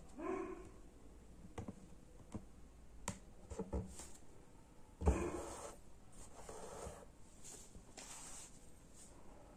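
Faint scattered clicks and taps of hand-embroidery handling: the needle, pins and thread being worked on a fabric hoop. Two short pitched sounds stand out, one about a quarter second in and a louder one about five seconds in.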